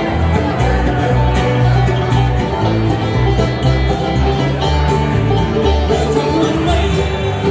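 Bluegrass band playing live on upright bass, mandolin, acoustic guitar and banjo.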